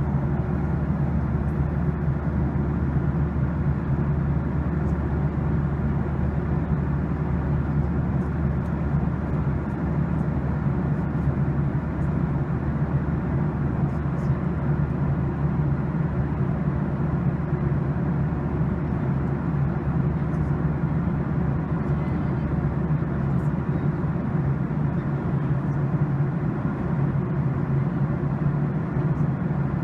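Steady cabin noise of a jet airliner in flight: the constant hum and rush of the engines and airflow, heard from inside the cabin. The deepest rumble eases slightly about three-quarters of the way through.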